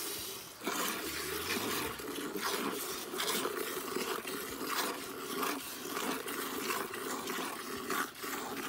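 Milk squirting into a pail as a cow is milked by hand: a rhythmic series of hissing squirts, one with each squeeze of a teat.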